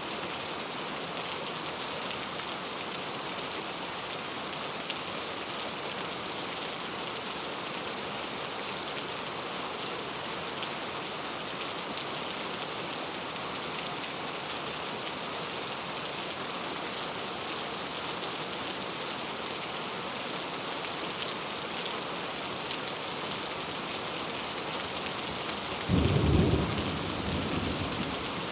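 Heavy rain falling steadily with an even hiss. Near the end a sudden low clap of thunder breaks in, the loudest sound, and dies away over a couple of seconds.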